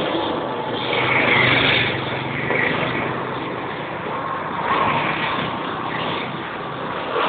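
City street traffic: a motor vehicle's engine running close by over the general noise of the street.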